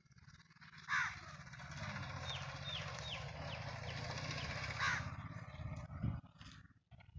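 A crow cawing twice, about a second in and again near five seconds, over a steady low hum, with a small bird's quick run of descending chirps in between.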